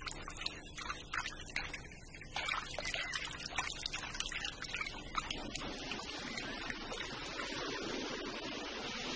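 Cartoon sound effects: a quick run of watery clicks and drips, giving way about five and a half seconds in to a steady hiss.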